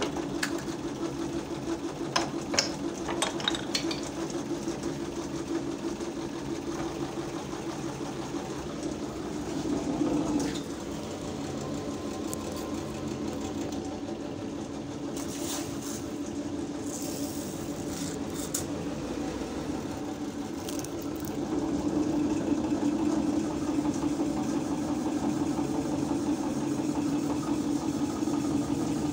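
A small electric motor runs with a steady, rattly hum in a machine workshop. A few sharp metal clicks and taps come about two to four seconds in and again around the middle.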